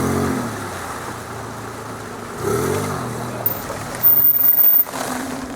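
Off-road 4x4 engine revving in two short rises and falls as it is driven forward through mud, followed by a louder stretch of rushing noise about four seconds in.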